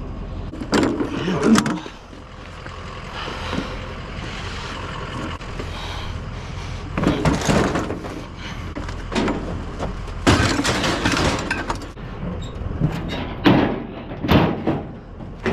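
Curbside metal scrap, likely the lawnmower, being handled and loaded onto a truck: scraping and several clattering bangs and thumps in bunches, over a low steady hum.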